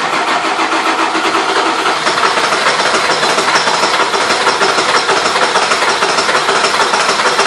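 Ford 7.3 L Power Stroke V8 diesel in an F-350 cranking on the starter with a fast, even rhythm, turning over but not starting. This is a no-start fault: fuel pressure is present, and the cause is still unknown.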